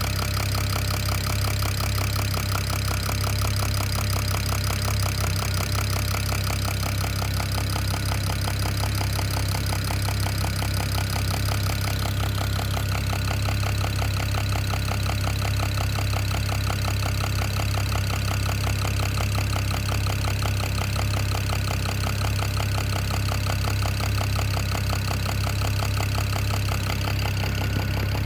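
BMW N54 3.0-litre twin-turbo straight-six idling steadily, with a rapid, regular knocking that the owner thinks comes from the top end of the engine but is not sure.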